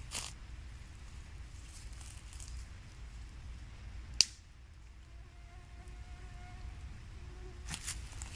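A single sharp pop from a small campfire about four seconds in, over a low steady rumble, with brief faint crackles near the start and near the end. A faint steady buzzing tone runs for a couple of seconds after the pop.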